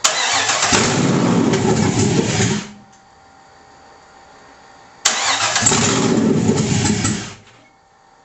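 LS1 5.7-litre V8 on an engine stand cranked twice, each time coughing to life for about two and a half seconds and then dying abruptly. It will not stay running, which the owner thinks may need a PCM retune after the VATS anti-theft was removed.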